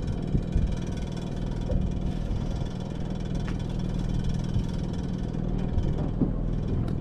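An engine aboard a small fishing boat running steadily at an even idle, a constant low hum.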